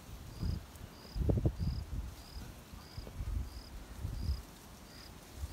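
A cricket chirping steadily, a short high chirp repeated about one and a half times a second. Irregular low thumps and rustles, loudest a little over a second in.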